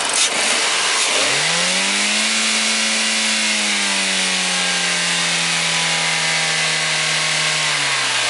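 Toyota Corolla's 1.6-litre VVT-i four-cylinder engine revved by hand at the throttle linkage. After a click, the engine pitch rises quickly about a second in and is held at around 4,000 rpm, below the rev limiter. It sags slightly and drops back toward idle near the end.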